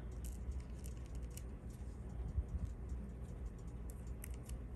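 Faint, scattered small ticks and scrapes of a needle-pointed craft tool's metal tip poking at an open-back rhinestone setting, clearing out leftover foil backing, over a steady low hum.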